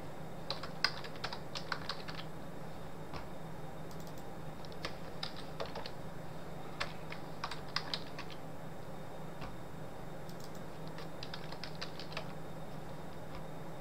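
Computer keyboard typing in several short bursts of keystrokes, over a steady low hum.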